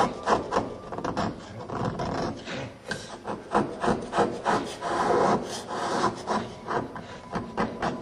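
Long-handled chisel scraping and chipping into an Ogatsu slate ink stone as the well is carved out, in short uneven strokes with a longer scrape about five seconds in.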